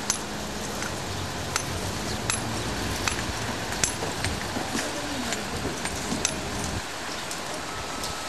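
Masons' hand tools striking stone, sharp metallic clinks about one every three-quarters of a second. Under them a low steady hum cuts off abruptly about seven seconds in.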